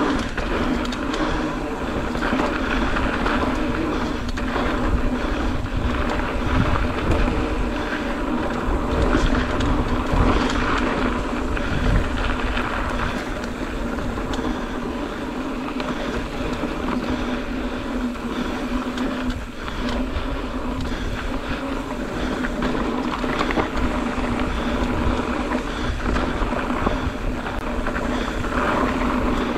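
Mountain bike riding down a dirt trail: tyres rolling and the bike rattling over the ground, with wind on the microphone. Over it runs a steady buzz, the Hope rear hub's freehub ticking as the bike coasts.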